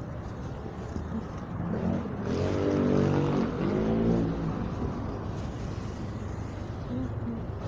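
A vehicle's engine accelerating, its pitch rising and falling twice in about two seconds as it pulls away through the gears, over a steady low engine hum.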